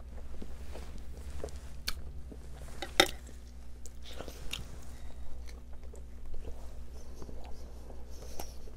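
Close-up eating sounds: a person chewing and biting pieces of Iraqi pacha (stuffed tripe with chickpeas), with scattered mouth clicks and one sharper click about three seconds in.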